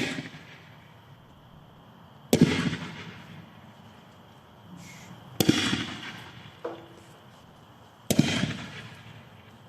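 45mm smoke mines fired one after another from mortar tubes: three sharp bangs about two and a half to three seconds apart, each dying away over about a second.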